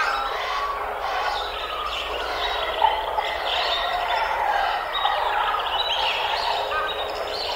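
Many birds calling at once: a dense, continuous chorus of short overlapping chirps and calls.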